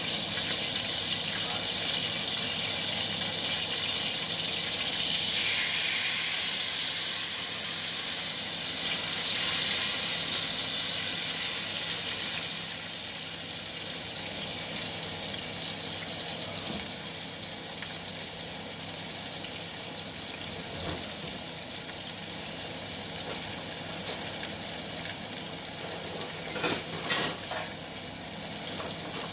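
Sliced onions frying in hot oil in a stainless steel skillet, a steady sizzle that swells about five seconds in and then settles. A few sharp clicks near the end.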